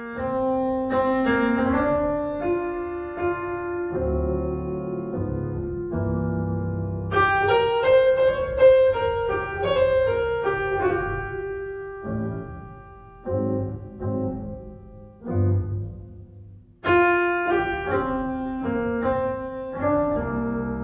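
Background piano music: a melody of held notes over chords.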